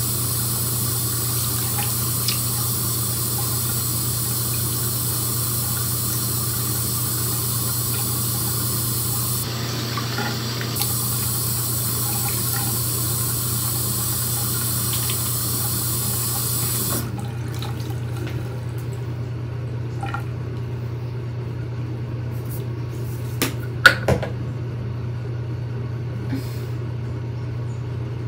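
Bathroom sink tap running steadily, shut off abruptly a little past halfway. Afterwards a few small clicks, one sharp one about three-quarters of the way through.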